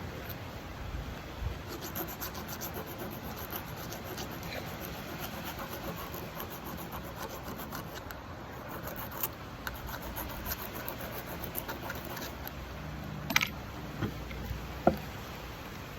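Hand finishing of a small cold-forged metal blade: steady rubbing strokes of an abrasive against the metal. Near the end come a few sharp knocks, one with a brief ring.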